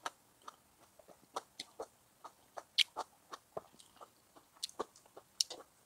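A person chewing a mouthful of hot pot food, leafy greens from the broth. The sound is a string of soft, wet mouth clicks and smacks, irregular at a few a second, with one sharper click about three seconds in.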